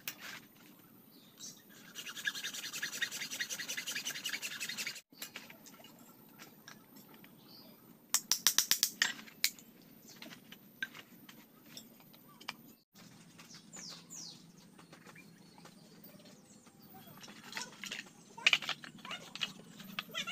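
Knife work on green bamboo: a quick run of scraping strokes, then a few sharp knocks and cuts. Birds chirp in the background.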